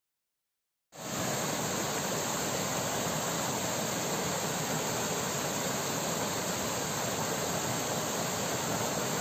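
Steady rush of river water flowing over rocks, cutting in suddenly about a second in after a moment of silence.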